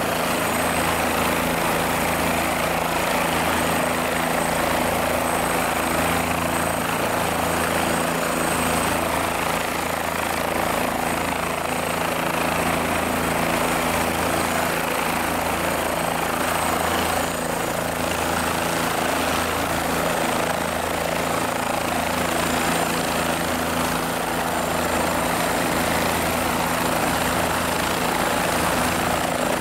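Light helicopter running on the ground with its main rotor turning: a steady turbine whine over a low, pulsing rotor beat.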